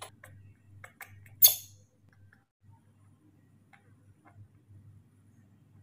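Small wet clicks and smacks of a newborn baby monkey sucking milk from a feeding bottle's teat, with one sharper, louder click about a second and a half in, then a couple of faint ones later.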